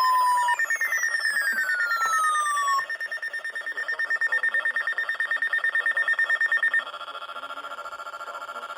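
Weather alert radios sounding their alarms: two falling siren sweeps over a steady, rapidly pulsing high beep. About seven seconds in, these give way to a quieter, lower pulsing alert tone, signalling that a new warning is being broadcast.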